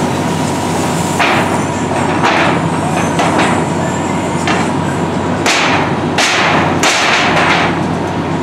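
A firefighter's pike pole bangs and scrapes against corrugated sheet metal several times, pulling apart smouldering rubbish. Under it, a hose stream hisses and a pump drones steadily.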